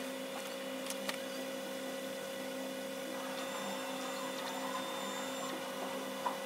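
Flatbed scanner of a Brother DCP-T710W inkjet all-in-one running a scan: a steady motor hum, with a light click about a second in.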